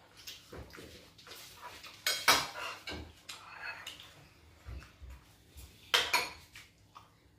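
Metal spoons clinking against china bowls and plates, with scattered light taps and two louder clinks, one about two seconds in and one about six seconds in.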